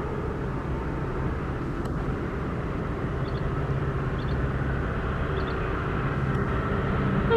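WDG-4 diesel locomotive's 16-cylinder two-stroke EMD 710 engine running under load as it approaches at the head of a container freight train: a steady low rumble that grows slightly louder near the end.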